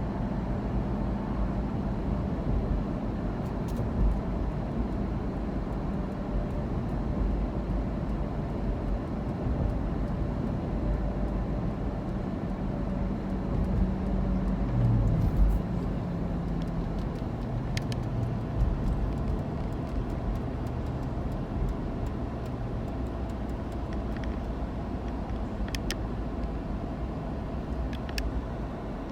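Steady running of a road vehicle: a low engine and road rumble that shifts slightly in pitch about halfway through, with a few faint clicks.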